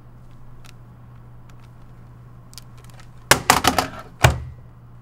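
Corded desk phone handset being hung up: a quick clatter of plastic knocks about three seconds in, then one louder knock a second later, over a steady low hum.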